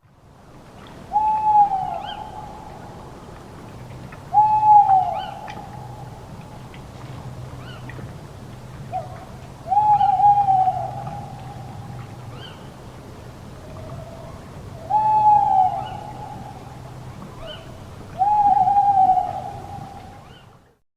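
Owl hooting: five long hoots a few seconds apart, each opening with a quick falling slide and then held on one pitch for about a second. Faint short higher chirps come between the hoots.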